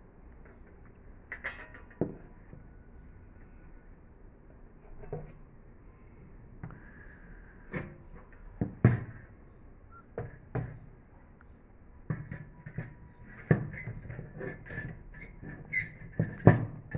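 Metal parts of a portable knock-down fire pit clinking and knocking as they are handled and slotted together. The knocks are scattered at first and come thick and fast in the last few seconds.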